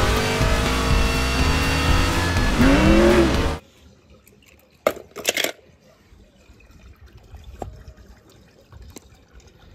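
A race-car sound effect: engine noise with a pitch that sweeps up and back down near the end, cut off abruptly about three and a half seconds in. After it come a few sharp clicks of toy cars being handled.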